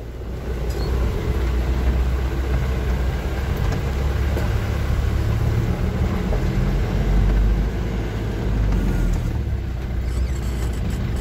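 An old vehicle's engine and tyres driving along a dirt track, heard from inside the cab: a steady low rumble.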